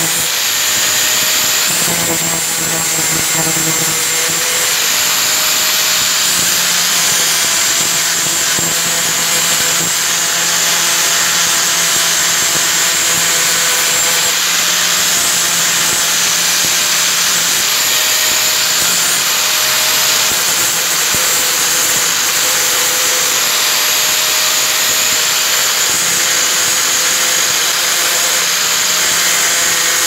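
Electric angle grinder running steadily, its abrasive disc grinding a small metal part.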